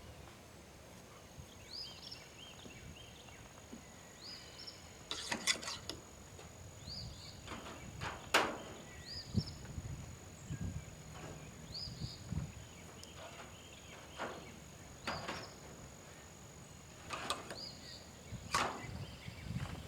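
A few sharp clicks and knocks, the loudest about eight seconds in, over a bird repeating a short chirp every second or two and a steady high insect whine.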